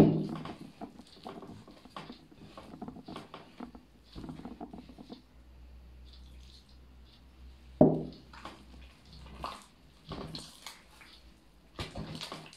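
Hands kneading a soft, wet dough of flour and warm water in a glass bowl: irregular squelching and patting, with two dull knocks, one at the start and one about 8 seconds in.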